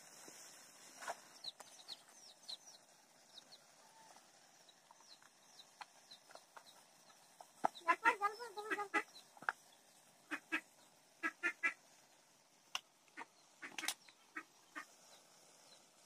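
Farm birds calling in short runs of repeated notes. The longest run comes about eight seconds in, with a few more soon after, and a few sharp clicks fall between them.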